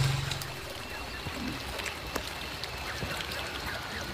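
A motorcycle engine's steady drone fades out about half a second in, leaving a faint, even outdoor hiss with scattered small ticks.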